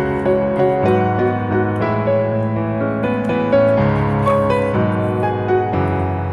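Background music: gentle piano melody over sustained chords.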